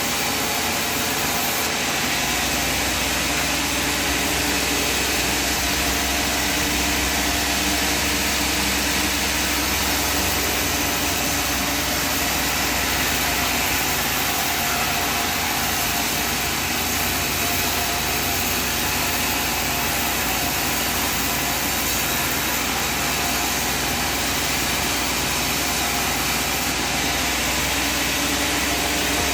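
Sawmill machinery running steadily: a loud, even machine noise with no breaks.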